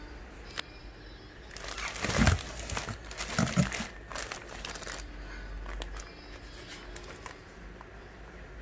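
Plastic packaging of cotton-bud pouches and boxes crinkling and rustling as it is handled, loudest about two seconds in and again around three and a half seconds, then fainter crackles.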